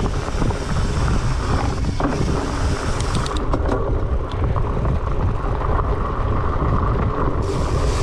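Wind rushing over the microphone as a mountain bike rolls along a dirt trail. The bike rattles and clicks a few times about three to four seconds in.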